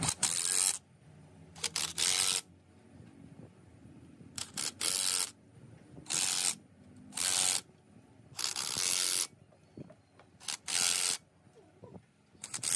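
Impact wrench running bolts into the fire pump engine's cast crankcase end cover, fired in about nine short bursts of under a second each with short pauses between as it moves from bolt to bolt.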